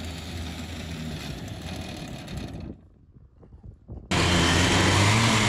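Stihl 088 two-stroke chainsaw engine running steadily at a low speed. It stops abruptly about two and a half seconds in. After a second or so of near silence it comes back suddenly, running louder and faster near the end.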